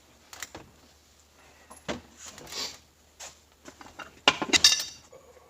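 Metal transmission parts clinking and knocking as they are handled: a few light knocks, then a quick cluster of ringing metallic clinks about four seconds in.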